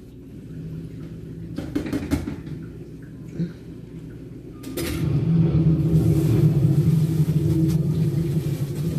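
Compact track loader's diesel engine working as it plows snow, heard through a window, with a few clanks of the bucket about two seconds in and again near the middle. From about five seconds in the engine runs louder as it pushes snow, the bucket scraping hard on the pavement.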